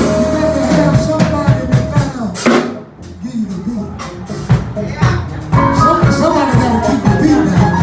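Live soul band playing, with a drum kit beating under it. A long held note opens the passage, and the band drops nearly out for a moment about three seconds in before coming back in full.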